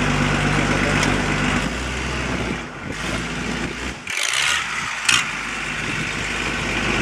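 Motorboat engine running under way with water rushing along the hull. The engine note drops back about a second and a half in, and a short, loud rush of noise comes about four seconds in.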